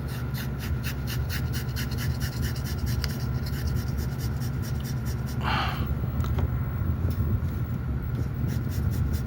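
Razor blade scraping old glue off an Akai MPC 2000's LCD screen, quick scratchy strokes at about five a second that pause for a few seconds in the middle, with one audible breath out about five and a half seconds in.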